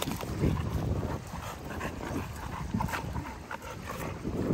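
A dog close by making small whimpering sounds over an irregular low rumble.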